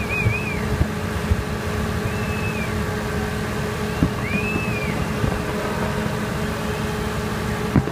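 Fireworks going off in a dense, steady stream of low rumbling bangs and crackles, with three short high whistles that rise and fall over it.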